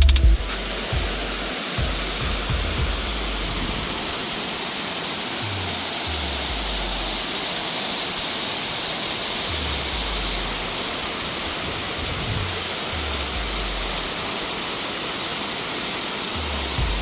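Waterfall: a steady, even rush of falling water, with soft low rumbles underneath.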